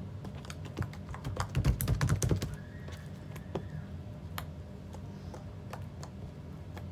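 Slime being squeezed and kneaded in the hands, giving a quick run of small wet clicks and pops that is loudest about two seconds in, then scattered single clicks. A steady low hum runs underneath.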